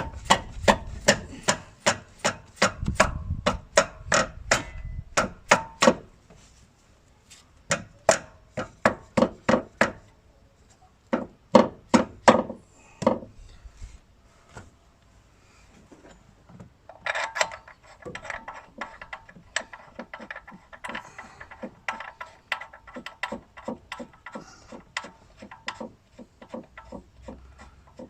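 Repeated hammer blows on the engine's upper mount, in runs of about two to three strikes a second with short pauses, as the mount is knocked into position. In the second half the blows give way to lighter clattering and scraping of tools against metal.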